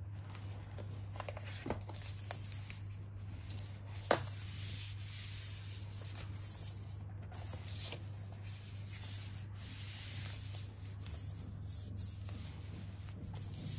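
Hands lifting a wrapped MacBook Air out of its cardboard box and handling it: a continuous papery rubbing and scraping of the protective wrap and box, with a few light knocks, the sharpest about four seconds in, over a steady low hum.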